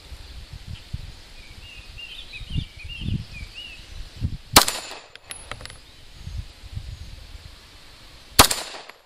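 Two pistol shots from a Glock, about four seconds apart, slow aimed fire from a bench rest.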